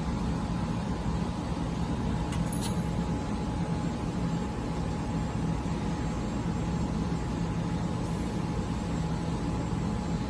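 Steady drone of running factory machinery: a low hum with a thin steady whine above it, and a brief light metallic clink about two and a half seconds in.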